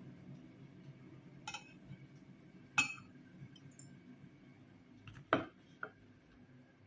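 A cup clinking as it is handled: about five light, sharp clinks, the loudest about three seconds in and two close together a little after five seconds.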